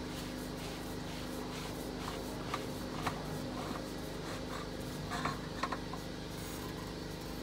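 A steady low hum with several even tones, broken by a few faint clicks and taps.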